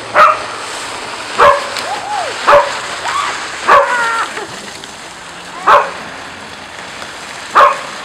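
Australian Shepherd puppy barking, six sharp barks spaced one to two seconds apart, with higher rising-and-falling cries between the first few.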